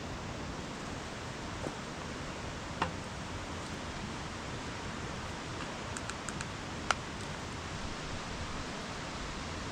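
Steady rushing of a mountain stream, with a few sharp light clicks scattered through, the clearest about three and seven seconds in.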